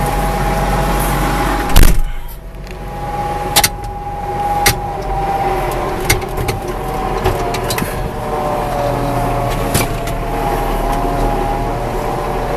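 Farm tractor engine running steadily while the tractor bounces across cornfield rows. There is a loud knock about two seconds in, and scattered clunks and rattles after it.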